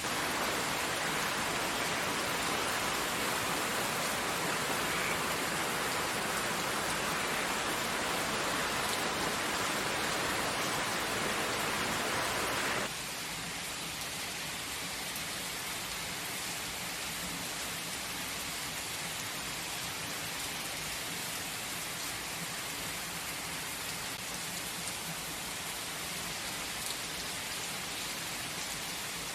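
Steady rain falling, a continuous even hiss of drops. About thirteen seconds in it drops suddenly to a softer, less bright patter and stays there.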